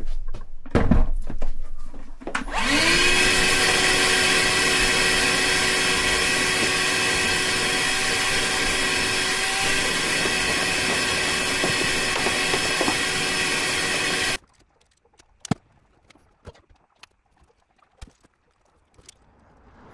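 Wet/dry shop vacuum switched on about two and a half seconds in, its motor whine rising in pitch as it spins up, then running steadily with a loud rush of air as it sucks debris off the floor, and cutting off abruptly about fourteen seconds in. Before it start a few knocks as it is handled, and after it a few light clicks and taps.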